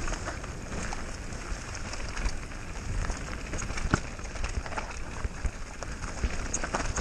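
Mountain bike tyres rolling fast over a dirt forest trail, with a steady rumble and the bike knocking and rattling over bumps and roots; the sharpest knock comes about four seconds in.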